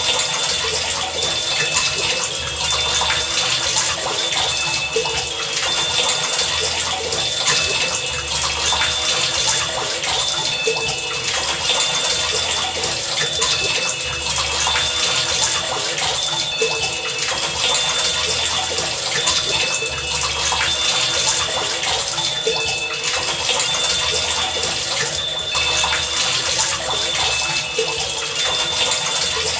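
Heavy rain falling steadily, a dense patter of drops, with short high ringing notes recurring throughout and a low hum that comes and goes every second or so.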